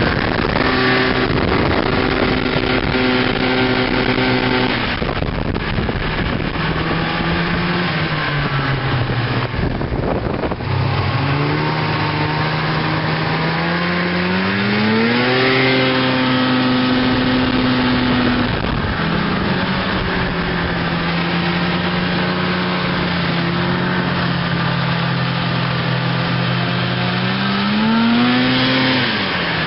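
Snowmobile engine running while being ridden, its pitch falling and rising with the throttle: it drops off about eight seconds in, climbs steadily to a higher pitch, holds there, eases down, and revs up once more near the end before falling away.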